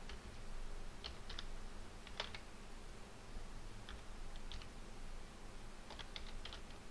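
Computer keyboard being typed on: irregular keystroke clicks, a few at a time with short pauses between them, and a quick run of keys near the end.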